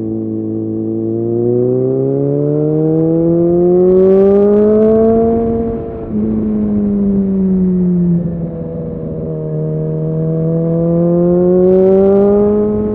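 Suzuki Bandit 650's inline-four engine under acceleration: the revs climb for about six seconds, drop sharply at a gear change, sag for a couple of seconds, then climb again until another drop right at the end.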